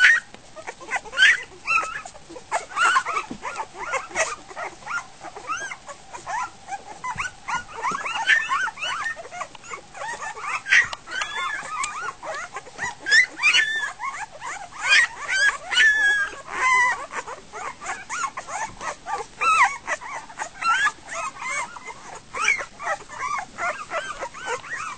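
A litter of week-old goldendoodle puppies crying and whimpering all at once, many short high squeals and yips overlapping without a break, after their mother has left them. It is chaotic.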